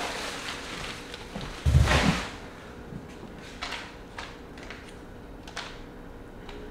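Groceries being unpacked onto a kitchen countertop: a loud heavy thump about two seconds in as something is set or dropped down, then a few light knocks as smaller items are put on the counter.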